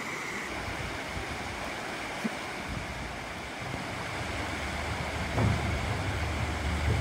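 Small creek running over rocks, a steady babbling rush of water. A low rumble builds in the last couple of seconds.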